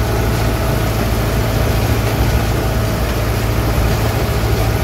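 Tractor diesel engine running steadily under load, with a strong low hum, heard from inside the cab while pulling a working manure spreader.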